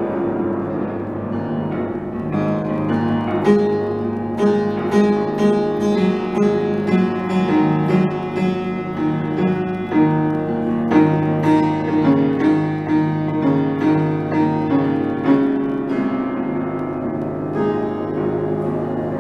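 Piano music, with notes and chords struck at a steady pulse of about two a second through the middle of the passage.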